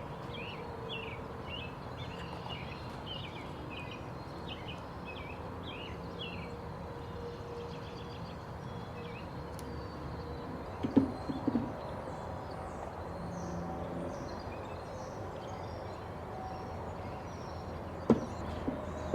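Small birds chirping over and over, short falling chirps, with a faint steady hum underneath. A couple of short sharp knocks about halfway through and again near the end, as parts are handled during reassembly.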